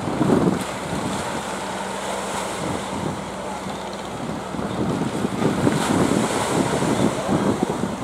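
Strong gusting wind buffeting the microphone over the wash of surf, gusting harder in the second half. A faint low steady hum runs under it for the first few seconds.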